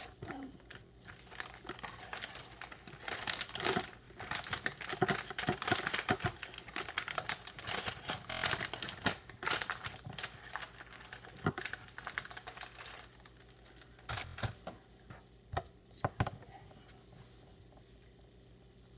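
Plastic candy packaging of Peeps marshmallows crinkling and crackling as it is handled and torn open, in dense runs for about twelve seconds, then a few separate crackles before it stops.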